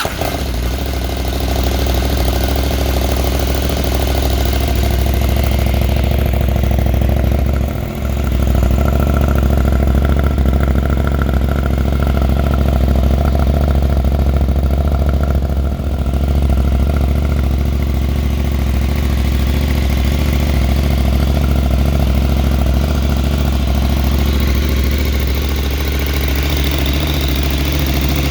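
Husqvarna Norden 901's 889 cc parallel-twin engine idling steadily through an Arrow mid-pipe and the stock muffler, with two brief dips in level partway through.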